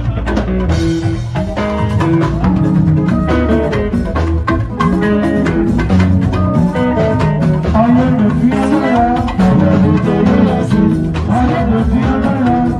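Live band music played through the stage PA, with a drum kit keeping a steady rhythm under other instruments and a voice singing over it.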